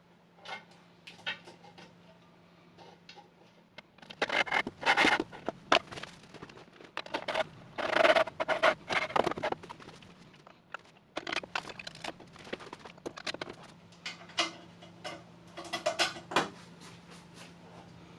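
Hand work on a wooden and metal jig: irregular knocks, clicks and scrapes as parts and tools are handled, in two busy stretches, over a steady low hum. No saw is running.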